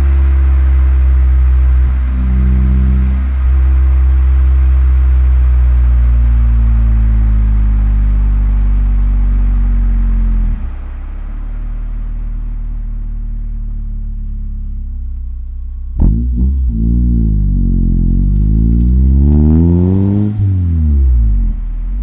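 1994 Nissan Primera P10 1.6 SLX's four-cylinder petrol engine under way. It holds a steady note for about ten seconds, then goes quieter for several seconds. About sixteen seconds in it accelerates with a rising pitch, drops at a gear change about twenty seconds in, and starts climbing again at the very end.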